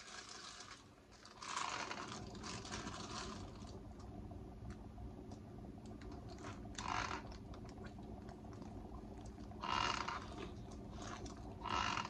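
Hand handling noise from tie-dye work: several short bursts of rustling and scrunching, with small clicks in between, over a low steady hum.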